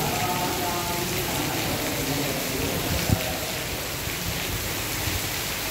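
Torrential rain pouring steadily, a dense even hiss of downpour on the road and trees, with one sharp tap about three seconds in.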